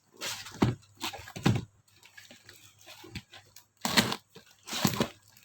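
Packaging being handled for unboxing, crinkling and rustling in four short bursts.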